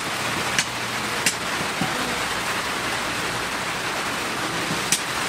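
A steady, even hiss with sharp clicks three times: about half a second in, just over a second in, and near the end.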